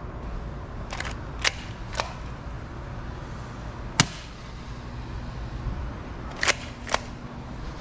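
Bug-A-Salt 3.0 salt gun being worked and fired: six sharp snaps, three in quick succession in the first two seconds, the loudest one alone about four seconds in, and two more close together near the end.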